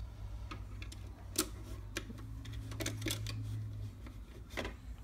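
Hard plastic Lego pieces clicking and knocking as minifigures and the ferry's cabin are handled: a few separate sharp clicks, the loudest about a second and a half in and another near the end, over a steady low hum.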